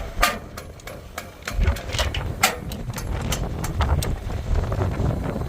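Metal clicks and clinks of a wrench and the mailbox lock's nut, bracket and cam being tightened and worked, a dozen or so irregular sharp ticks over a steady low rumble.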